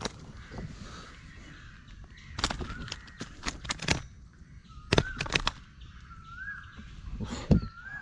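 Clusters of sharp knocks and thuds as a just-caught pearl spot (karimeen) is pinned and handled on the dirt bank, loudest about five seconds in and near the end. A bird calls repeatedly between them in short rising-and-falling notes.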